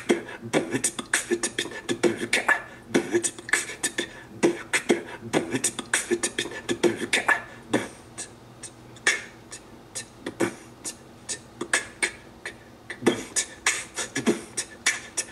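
Beatboxing played through a Google Home Mini's small speaker: a quick, steady rhythm of percussive mouth sounds, several strokes a second.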